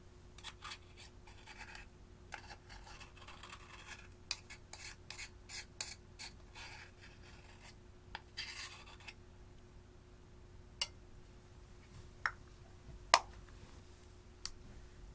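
Scraping and rubbing against a hard surface in a series of short strokes, then four sharp separate clicks near the end, with a faint steady hum underneath.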